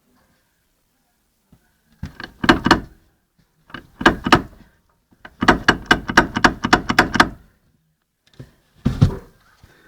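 Knocking from the front wheel of a Citroen BX: bursts of sharp, irregular knocks with silence between, the longest a quick run of about a dozen knocks. This knock is the front-wheel fault.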